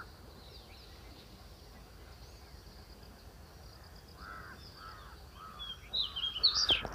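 Crows cawing against faint steady background noise: a run of four or five short caws about four seconds in, followed by higher-pitched bird chirps near the end.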